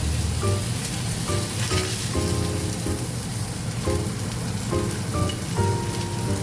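Soft background music of short melodic notes over a steady sizzling crackle, typical of salmon frying in a pan.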